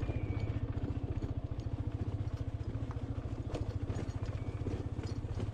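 Motorcycle engine running steadily at low speed, with a few faint clicks and rattles from riding over a rocky dirt track.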